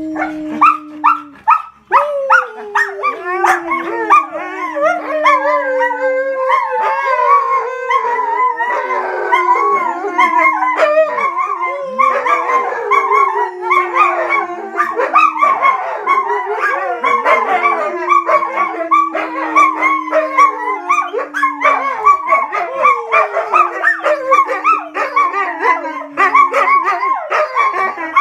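Young wolfdogs and a husky howling together. A series of long howls, each sliding down in pitch and starting again every few seconds, over a busy chorus of higher yips, whines and short barks.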